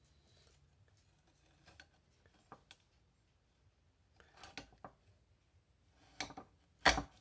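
Kitchen knife slicing an onion held under water in a glass bowl: faint, scattered clicks and taps of the blade, with a louder tap near the end.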